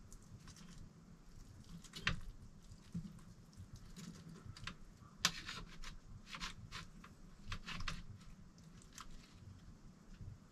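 Metal fork scraping and tapping against a metal baking pan while cutting cooked salmon into portions: a scatter of short scrapes and clicks, the sharpest about two seconds in and again just past five seconds.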